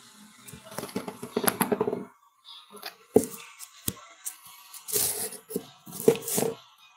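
Handling noise from a phone being carried: the microphone rubs and scrapes against hand and clothing in irregular rustling bursts, with a few sharp knocks.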